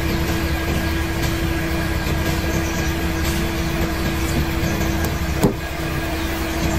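A steady mechanical hum with a constant low tone, and one short sharp sound about five and a half seconds in.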